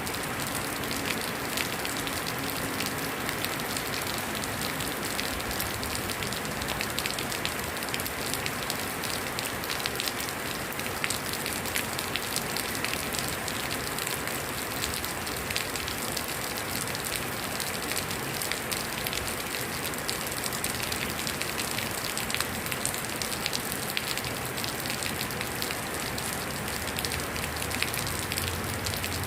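Heavy rain falling steadily on a metal roof, a dense hiss made up of countless individual drop strikes, unchanging in level.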